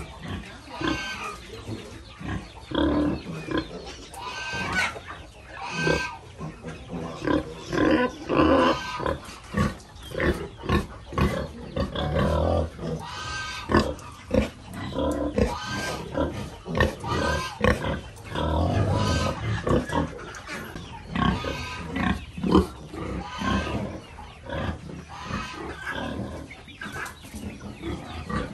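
Piglets squealing and grunting as they jostle to suckle from the sow, with many short, pitched squeals over lower grunts.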